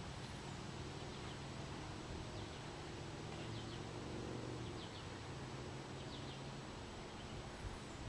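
A distant outdoor warning siren wailing faintly, its low tone fading out near the end, with a few short bird chirps over steady outdoor hiss.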